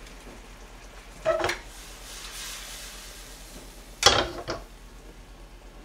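Cooking utensils knocking and clinking against a frying pan while vegetables and meat are stir-fried, with a faint sizzle. A ringing clink comes about a second in, and two sharp knocks about four seconds in.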